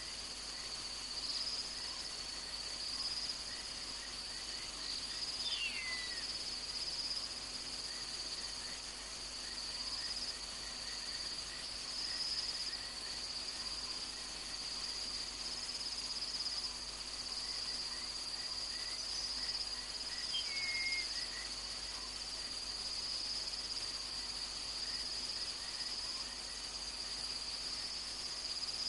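Night insect chorus: a steady, high-pitched cricket trill, with rows of quick, lower chirps from other insects. Two short falling calls cut through it, one about six seconds in and another about twenty-one seconds in.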